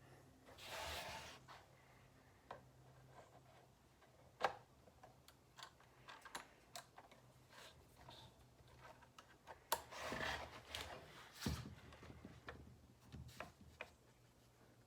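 Light clicks and taps from handling a Drill Doctor drill bit sharpener and its bits, with two short rasping rubs, one about a second in and one near ten seconds, under a faint steady low hum.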